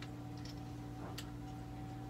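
Steady low electrical hum with a few faint clicks and ticks; the cordless drill is not running.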